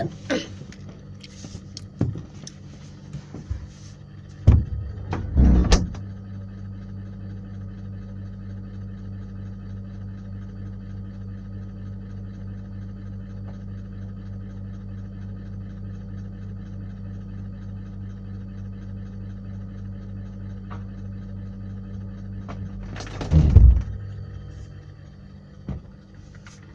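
A few knocks and a door-like thump, then a steady low electrical hum for about seventeen seconds. The hum stops with another loud thump about twenty-three seconds in.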